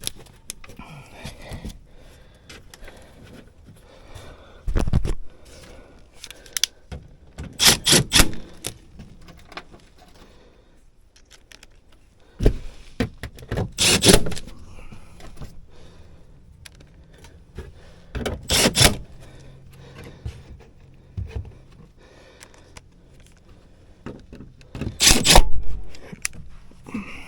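Intermittent clattering, scraping and knocking from tools and metal parts being handled, in about six loud bursts a few seconds apart.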